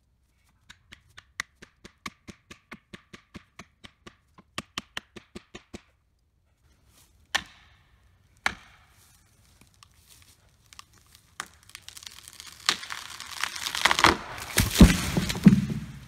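Pine tree being felled: the hinge wood gives two sharp cracks, then the trunk crackles and tears as it tips over and crashes to the ground near the end. Before that comes a quick, even run of ticks, about five a second.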